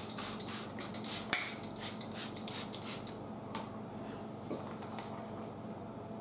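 Trigger spray bottle misting water in quick repeated squirts, about four a second, which stop about halfway through. Then only a few faint ticks follow.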